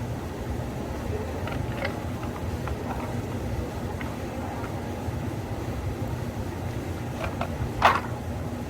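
Cafe work sounds: a steady low mechanical hum with a few light clicks and taps, and one sharper, louder clack about eight seconds in.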